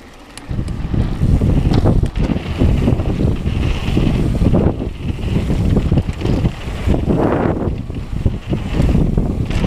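Wind buffeting the microphone of a camera on a mountain bike descending a dirt trail, with the tyres and bike rattling over the ground. It starts up loudly about half a second in, as the bike gathers speed.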